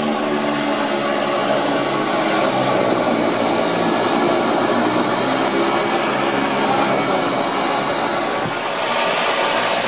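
Twin Otter floatplane's turboprop engines and propellers running steadily while it taxis on the water, heard from inside the cabin, with a faint high turbine whine that rises and falls slightly.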